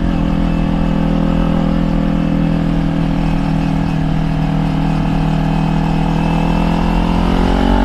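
Kawasaki Ninja 400 parallel-twin motorcycle engine running steadily under way, its pitch rising gradually near the end as it picks up revs.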